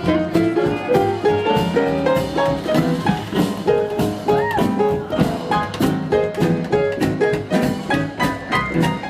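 Traditional New Orleans jazz band playing an instrumental chorus, with several horn and string lines over a steady beat. One note bends up and back down about halfway through.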